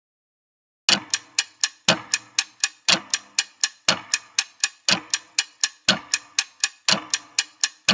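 Countdown timer ticking sound effect starting about a second in: even ticks about four a second, with a stronger tick on each second.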